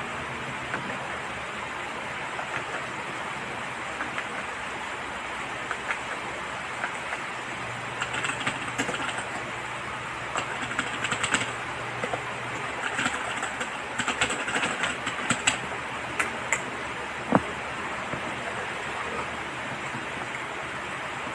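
Typing on a Gigaware Leaven K620 mechanical keyboard: scattered key clicks over a steady hiss, coming in quicker runs in the middle, with one sharper single click near the end.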